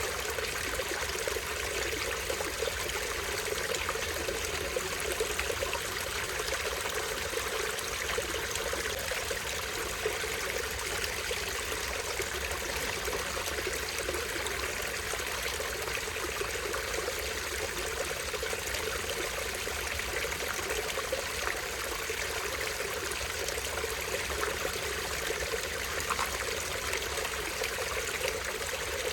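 Small stream flowing and trickling over a tiny waterfall: a steady, unbroken rush of water.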